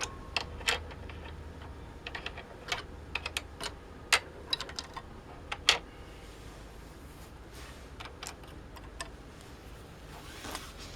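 Small plastic mixer slider knobs clicking against each other and the surface as they are handled and counted out one by one. The light clicks come irregularly, with a few sharper ones.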